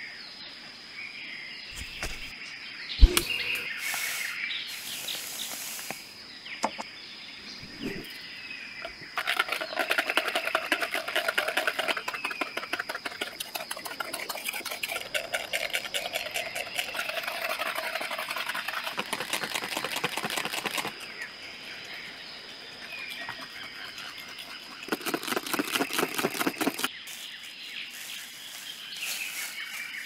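Wire whisk beating eggs and sugar in a plastic bowl: a fast, even clatter of the wires against the bowl in a long spell from about nine seconds to twenty-one, and again briefly a few seconds before the end. A single thump comes about three seconds in.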